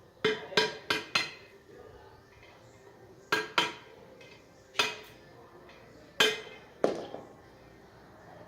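A series of about nine sharp, ringing clinks or knocks of hard objects striking together. They come in small groups: four close together at the start, two a little after three seconds, one near five seconds and two more after six seconds.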